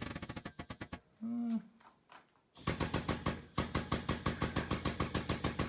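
Air tool hammering in quick pulses, about eight a second. It fades out in the first second, pauses, and starts again about two and a half seconds in. It runs weak because the compressor tank is low on air.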